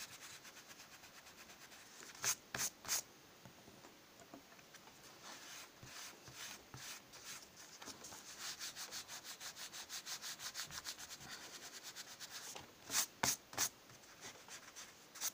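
White rubber eraser rubbed quickly back and forth over pencil marks on squared notebook paper, a steady run of short scrubbing strokes. Twice, about two seconds in and again near the end, three harder strokes stand out.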